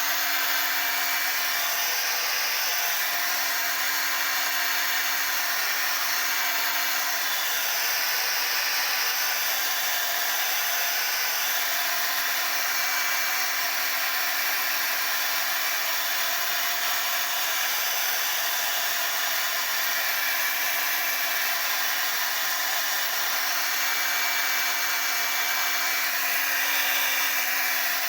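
Hand-held hair dryer blowing steadily, a constant rush of air with a thin steady hum under it, drying the layers of lace-wig glue.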